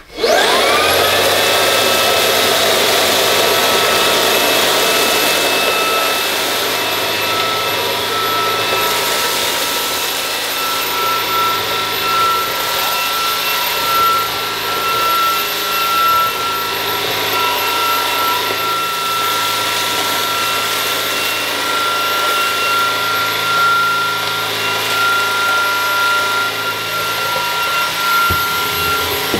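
Shark WandVac System cordless vacuum cleaner with its floorhead switching on, its motor whining up to speed within about a second, then running steadily with a high whine and a rush of air. It is sucking up lentils and grit from a tiled floor.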